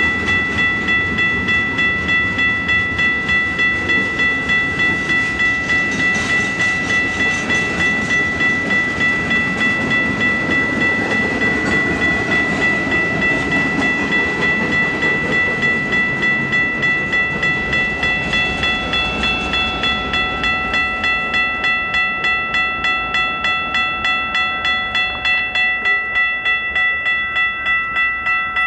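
Grade-crossing warning bell ringing steadily at about two strikes a second, over the rumble of freight cars rolling past the crossing.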